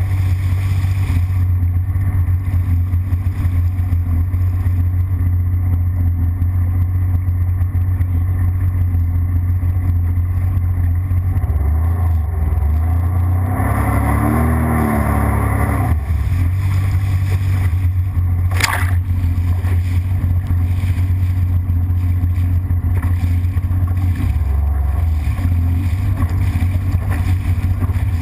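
Sea-Doo GTX jet ski engine running steadily at cruising speed, with water spray over it. About halfway through the engine rises in pitch and eases back under a rush of spray, and a single sharp slap comes soon after.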